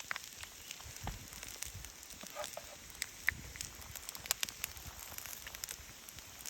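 Campfire crackling: irregular sharp pops and snaps over a steady hiss.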